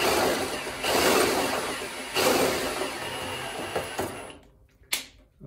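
Cordless drill spinning the bandsaw vise's lead screw to run the movable jaw closed, the whirring rising in three louder surges and stopping about four seconds in. A single sharp click follows.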